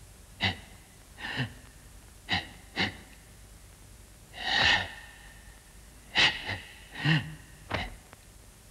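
A martial artist's sharp, forceful breaths, about nine short bursts spaced irregularly, as he moves through a kung fu stance form. One longer, louder breath comes near the middle, and one of the later ones has a low voiced grunt in it.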